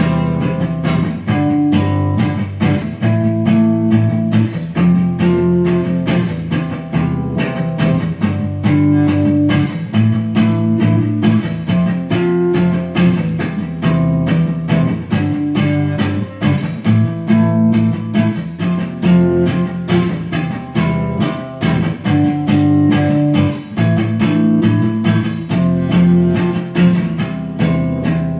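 Instrumental intro of a song: guitar music with a steady beat.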